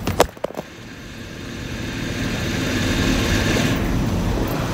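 A few knocks of a phone being handled, then the steady engine and road noise of a box truck cab at cruising speed, dipping and growing louder again over the next couple of seconds.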